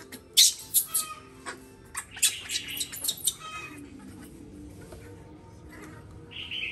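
Baby macaque giving short high-pitched squeaks in quick clusters, about half a second in and again two to three seconds in, with a longer squeal that starts near the end and falls away, over faint background music.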